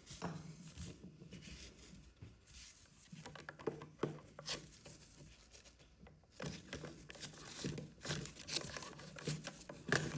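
Faint handling noises: light rustling and small scattered clicks as copper cable cores are worked into the terminals of a wall socket.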